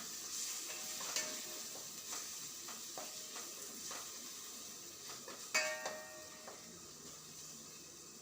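Onion-tomato masala sizzling in a pan while a spoon stirs it, scraping and tapping the pan. One louder ringing knock of the spoon against the pan comes about five and a half seconds in.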